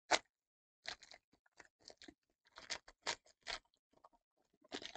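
Foil trading-card pack wrapper crinkling and tearing as it is pulled open by hand and the cards are slid out: a faint, irregular run of short crackles, loudest right at the start.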